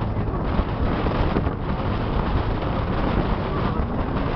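Strong wind buffeting the camera microphone: a loud, steady, rough rumble.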